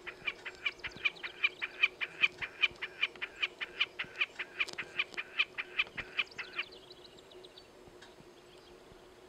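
Wilson's snipe calling from a perch: a rapid, even series of repeated notes, about three a second, that stops abruptly a little over six seconds in, trailing off into a few fainter notes.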